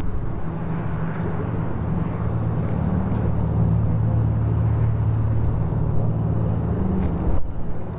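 Large propeller-driven airtanker flying low overhead: a steady, deep engine drone, broken briefly by a short dropout in the sound about seven seconds in.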